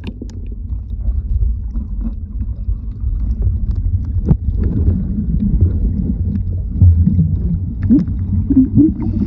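Muffled underwater rumble picked up by a phone's microphone sealed inside a waterproof diving case, as a swimmer moves through the water close by. A few sharp clicks and pops cut through the low rumble.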